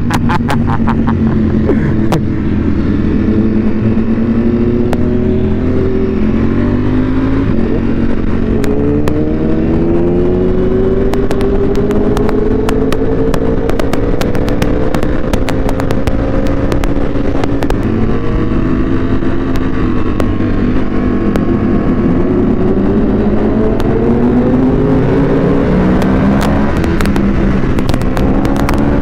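Ducati Panigale V4 superbike's V4 engine through a Termignoni exhaust, heard on board while riding. The engine note climbs slowly and falls back several times as the bike pulls and eases off, with strings of crackling exhaust pops about a second in and again near the end.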